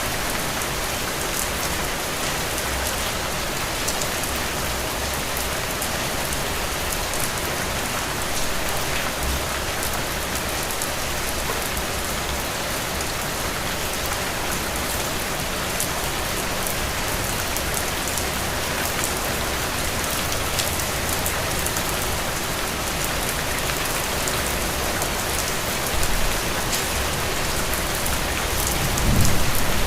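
Heavy rain falling steadily, a dense hiss with scattered individual drop ticks. Near the end a low rumble of thunder begins.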